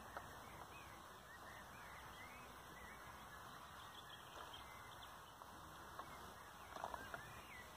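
Near silence: faint open-air ambience with a few faint high calls, and a short, slightly louder call about seven seconds in.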